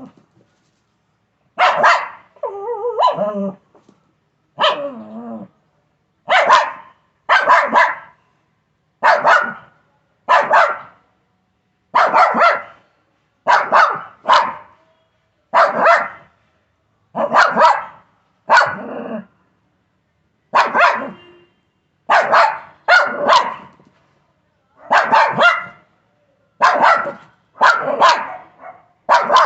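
Shih Tzu barking over and over at a chicken, in quick runs of one to three barks every second or two, with a few wavering, pitched sounds among the first barks.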